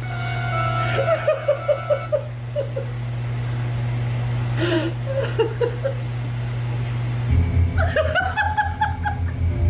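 A person laughing in short, rapid bursts over a steady low hum, with more brief vocal sounds a few seconds later; about seven seconds in, a louder, pulsing low sound comes in.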